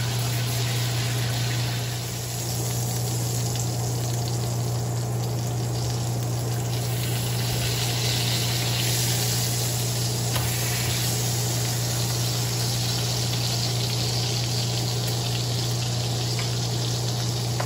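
Ribeye steak sizzling steadily in hot oil in a wok, over a constant low hum.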